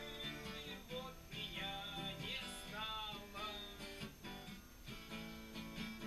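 Acoustic guitar strummed in chords, played softly.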